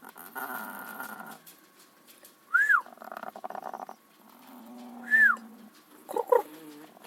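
A sleeping hen snoring: raspy breaths broken by two loud, high, squeaky whistles that rise and fall in pitch, with a short pitched call just after 6 s.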